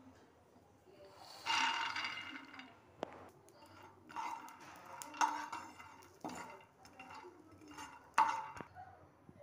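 Raw peanuts poured into a dark frying pan, clattering for about a second, then pushed and stirred around the pan with a utensil, with a few sharp knocks against the pan.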